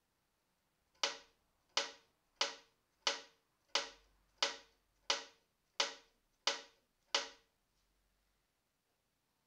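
A small pendulum hammer tapping a violin at the bridge ten times, about one and a half taps a second, each tap setting the violin ringing briefly: impulse taps used to measure the violin's sound radiation.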